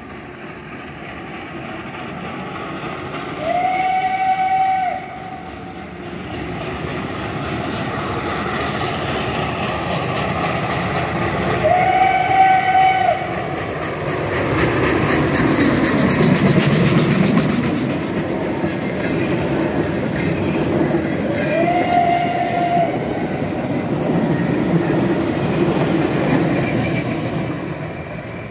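A steam locomotive hauling passenger coaches passes close by, sounding three short whistle blasts on one steady note, each about a second long and spaced several seconds apart. Under the whistles the rumble and clatter of the train builds, is loudest about halfway through as the locomotive goes by, then eases.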